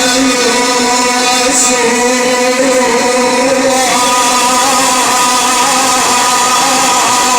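A male Quran reciter's voice holding one long, slowly wavering melodic note, an unbroken elongated vowel of chanted recitation.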